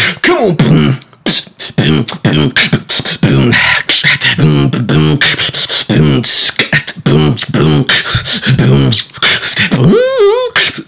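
Solo human beatboxing freestyle: rapid mouth-made kick, snare and hi-hat strokes over short, repeated low hummed bass notes, with a wavering sung note near the end.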